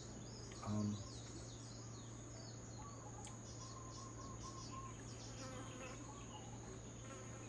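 Faint, steady, high-pitched insect drone with scattered small chirps, over a low steady hum. A brief low sound comes just under a second in.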